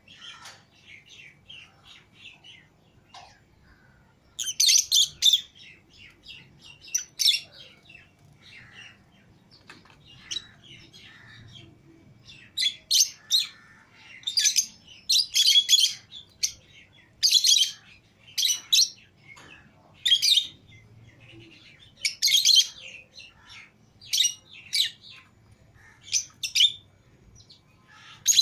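Lovebirds (Fischer's and lutino) chirping and chattering: soft twittering at first, then from about four seconds in, loud high-pitched bursts of chirps every second or two.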